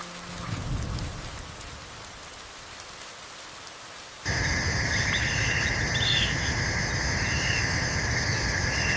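Steady rain. About four seconds in it cuts abruptly to a louder ambience with a steady high-pitched buzzing and a few short chirps.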